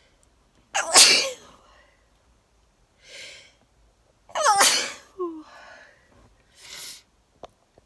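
A person sneezes twice, about three and a half seconds apart, each sneeze loud and sudden, with quieter breaths between and after; the uploader puts the sneezing down to allergies.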